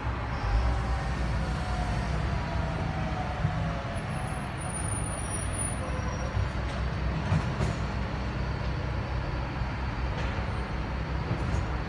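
Steady low rumble of road traffic, with a passing vehicle whose engine note falls in pitch over the first few seconds.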